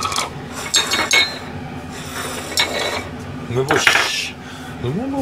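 Ceramic plates and bowls clinking and knocking as they are moved about on a stainless steel counter, with a few short ringing clinks about a second in and again near the end.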